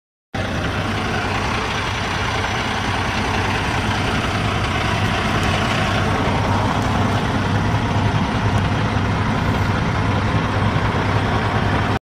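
Semi truck's diesel engine idling steadily: a continuous low hum with a broad rushing noise over it.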